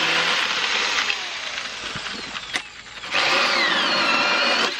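A Black & Decker Alligator Lopper's electric chainsaw motor is running and cutting wood, a high whine. It eases off about a second in and comes back loud just after three seconds, its pitch sagging as it goes.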